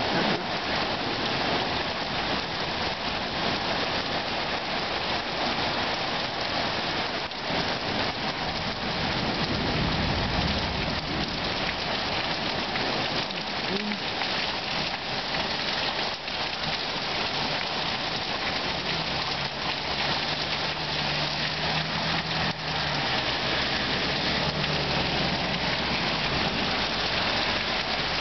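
Steady rain falling during a thunderstorm, an even hiss of drops.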